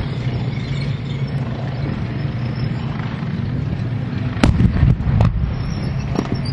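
A training IED goes off about four and a half seconds in: one sharp bang with a rumbling tail, then two weaker cracks. A steady low vehicle engine rumble runs underneath.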